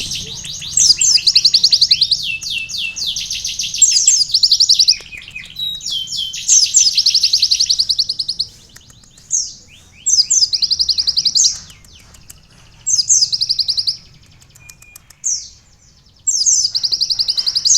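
A kolibri (sunbird) singing a loud, very high, rapid trilling song with canary-like phrases worked in. The song comes in bursts of one to several seconds with short pauses between them.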